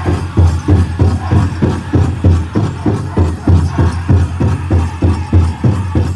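Powwow drum group pounding a fast, even beat on the big drum, about three to four strokes a second, with the singers' voices held over it.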